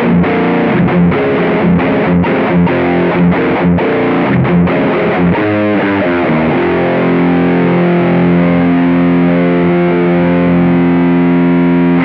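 Electric guitar played through a Mooer Cruncher, a Marshall-style distortion pedal, with its gain at about three o'clock and tone at noon. A choppy riff with short stops between the chords, a quick run of notes about halfway, then a chord held and left ringing.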